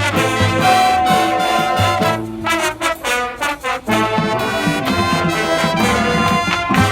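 Marching band brass section playing loud held chords, with a stretch of short, punched notes in the middle before the full chords return.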